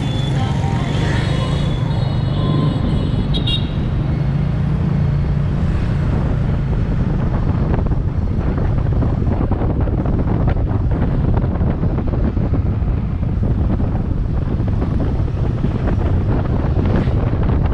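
Wind rushing over the microphone on a moving motor scooter, over the hum of the scooter's engine and street traffic.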